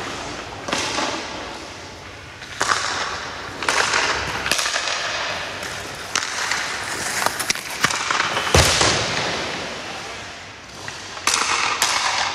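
Hockey goalie's skate blades scraping and carving the rink ice in a series of sharp hissing strokes, with a few hard knocks ringing around the arena.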